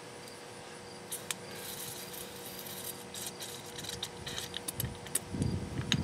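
Faint scattered clicks and rubbing, then about five seconds in a low, uneven rumble starts as the Oliver 1650's diesel begins to crank over with an injection line cracked open, to bleed air from the pump.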